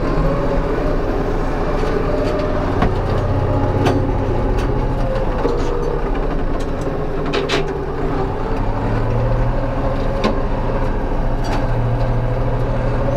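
Ursus 3502 tractor engine running steadily while driving a mower that mulches orchard prunings, with scattered sharp knocks over the engine noise.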